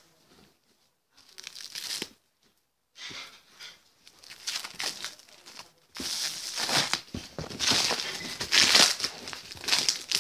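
Black plastic shipping wrap and packing tape being cut with scissors and torn open by hand, crinkling and tearing. Short scrapes come in the first seconds, and the tearing and crinkling grow louder from about six seconds in.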